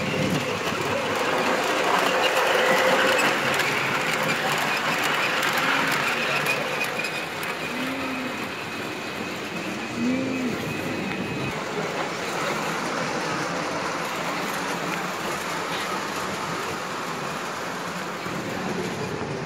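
Model subway train running along an elevated layout track: a steady rolling rumble with faint wheel clicks, loudest a few seconds in as it passes close.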